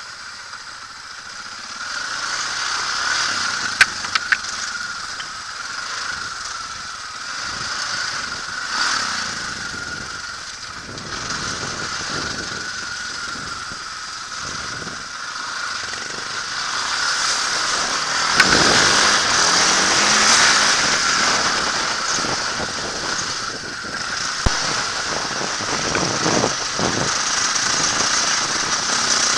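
Dirt bike engine running as it is ridden along a rough, rocky trail, its sound rising and falling with the throttle. A few sharp knocks from the bike over the rough ground are heard, the loudest about 18 seconds in.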